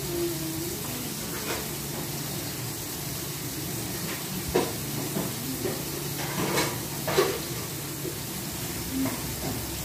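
Steady hiss with a low, even hum underneath, and a few light knocks or clicks about halfway through.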